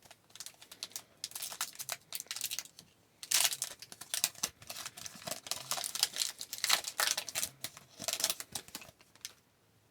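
A foil trading-card pack wrapper being torn open and crinkled by hand, with irregular crackling and rustling that grows busier about three seconds in.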